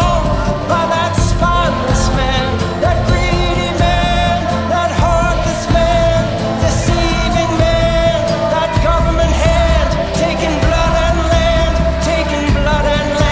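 A song's instrumental passage playing, with a wavering, sustained lead melody over a steady low bass.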